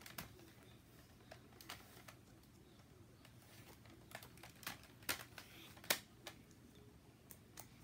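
Faint, scattered plastic clicks and taps as a Nerf blaster is handled and foam darts are pushed into its rotating drum to reload it.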